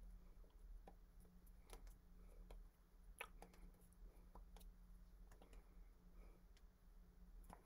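Near silence: faint, irregular clicks and taps from a person signing in sign language, over a low steady hum.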